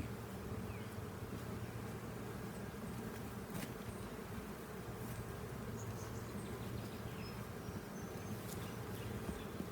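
Honeybees buzzing steadily around an open hive during a frame inspection, a low continuous hum with a few faint clicks.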